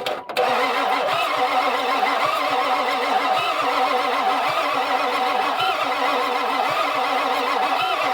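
1995 Ford F-250's 7.3 Power Stroke diesel cranking on the starter, jumped at the solenoid with a wrench. A sharp click at the start as the wrench makes contact, then steady cranking with an even pulsing beat. The engine does not catch: its injectors are not opening.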